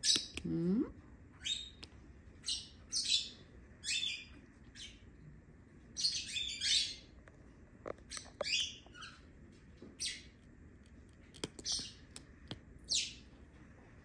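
Young peach-faced lovebird giving short, high-pitched chirps, singly and in quick runs of two or three, with a few faint clicks in between. The owner takes the calling as a sign that it is hungry.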